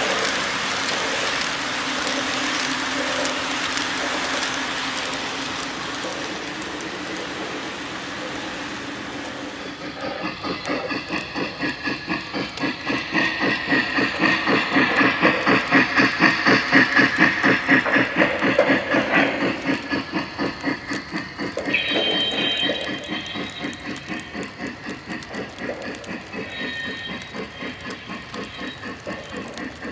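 Electronic steam sounds from a Lionel scale Polar Express Berkshire O gauge locomotive as it runs: a steady steam hiss for about ten seconds, then rhythmic chuffing at about four beats a second, loudest midway, with short higher tones in the last third.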